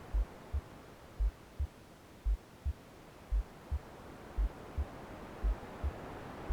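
Womb-style heartbeat sound: a slow, low double thump (lub-dub) about once a second, six beats in all. Under it, a soft low hiss of white noise that slowly fades and swells again.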